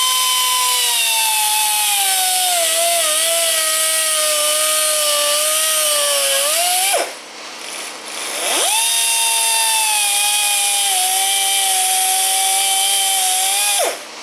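Die grinder with a cutoff wheel cutting through braided AN hose of rubber, steel and cloth braid, its high whine sagging in pitch as the wheel bites. It stops about halfway, then starts again for a second cut that ends just before the close.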